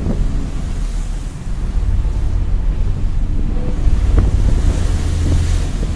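Gale-force wind buffeting the microphone over the rush of heavy, breaking seas, a loud, steady deep rumble.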